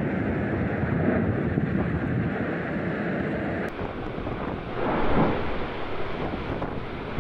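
Steady rushing roar of the erupting Cumbre Vieja volcano, mixed with wind buffeting the microphone; it swells briefly about five seconds in.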